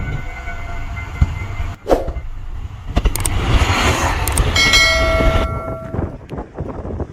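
A horn sounds twice, each blast a steady tone about a second long, over continuous low rumbling noise with a few sharp knocks.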